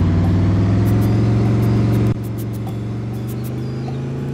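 Bus engine pulling under load, its note climbing slowly, then easing off abruptly about two seconds in and running on more quietly at a steady pitch, with light rattling clicks.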